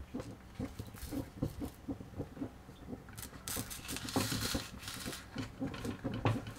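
Banana-leaf parcels rustling and scraping as they are laid one by one in a hot pan, with a short hiss about halfway through. Faint, irregular knocks come and go throughout.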